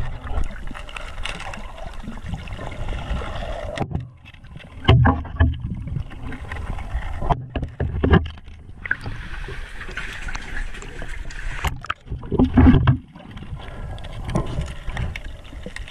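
Water movement heard underwater through a camera housing: an irregular sloshing rumble, with three louder dull surges about a third, half and four-fifths of the way through.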